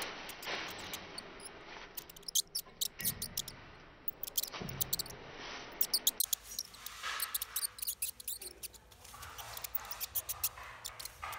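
Rat or mouse squeaks from a recording: short, very high-pitched squeaks in irregular runs. Under them is softer rustling of dry, papery bougainvillea flowers as a kitten plays in them.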